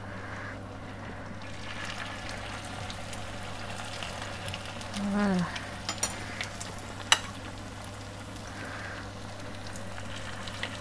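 Grated-potato latke patties frying in hot oil in a pan, a steady sizzle; the oil is a little too hot. A few sharp clicks of the metal spoon and spatula against the pan are heard midway.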